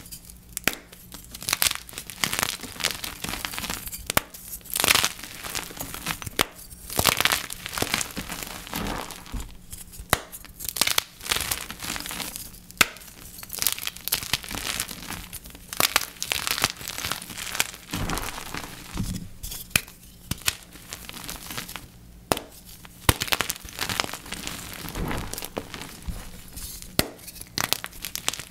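Blocks of gym chalk being crushed and crumbled, giving a continuous run of irregular crunches with sharper loud cracks now and then.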